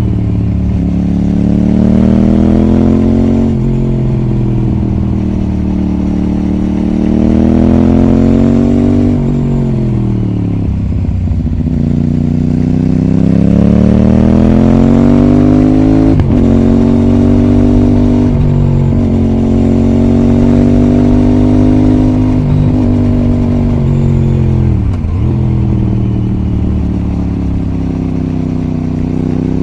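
Aprilia RS660's 659 cc parallel-twin engine pulling through the gears, its revs repeatedly rising and then falling away, with sharp drops about ten seconds in and again near the end.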